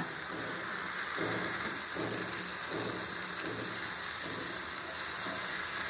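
Marinated sardines shallow-frying in oil on a tawa, with a steady sizzle.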